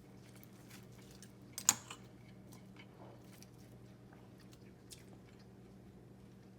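A person chewing a mouthful of folded scrambled eggs, with faint small mouth clicks. One sharp click about one and a half seconds in is the loudest sound, over a faint steady hum.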